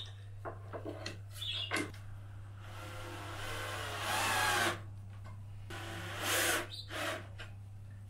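Small cordless screwdriver running for about two seconds as it drives a screw, its pitch rising slightly, then a shorter run about a second later. Clicks from handling parts come before, over a steady low hum.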